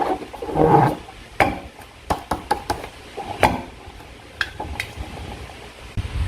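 Slime being handled and stirred: a short squelch, then a run of small sticky clicks and taps, with one sharper snap about three and a half seconds in.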